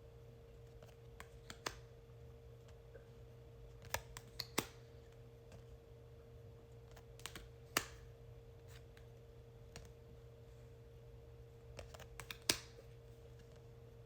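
Oracle cards being handled and flipped one at a time: a few light, separate clicks and taps of card on card, the sharpest about twelve seconds in.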